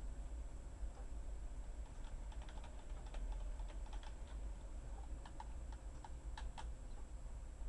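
Irregular light clicking, several clicks a second and denser after about two seconds, over a steady low hum.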